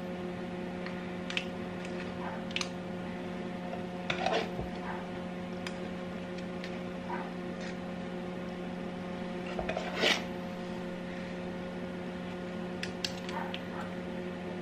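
Two metal teaspoons scraping cake batter off one another and clinking now and then as the batter is spooned into paper muffin cases, with the loudest clinks about four seconds and ten seconds in. A steady low hum runs underneath.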